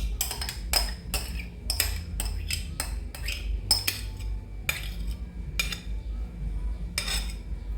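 Cutlery clinking and knocking against a small bowl as custard and caramel are stirred together, quick taps at first and then fewer and more spaced out, with a last knock near the end.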